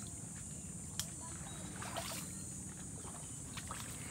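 Quiet outdoor background: a steady high hiss over a low rumble, with one sharp click about a second in.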